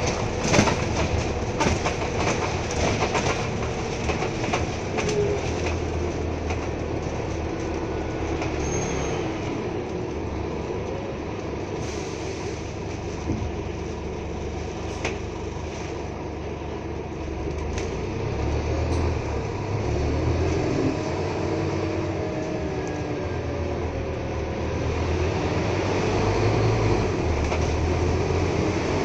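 Cabin ride noise of a Scania N230UD Alexander Dennis Enviro 400 double-decker bus on the move: the diesel engine's low drone under rattles from the body panels and fittings. The rattles are thickest in the first few seconds, and the engine note swells twice, near the end most strongly, as the bus pulls.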